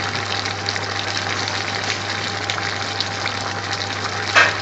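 Large pot of chopped onions, carrots and peppers boiling hard in liquid as they cook down into curry base gravy: a steady bubbling hiss with many small pops and one sharper crackle near the end.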